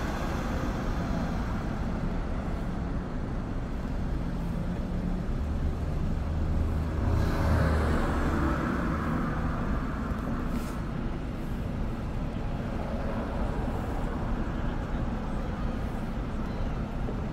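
Cars driving through a street intersection over a steady low traffic rumble. One car passes close by about seven to nine seconds in, its tyre and engine noise swelling and then fading.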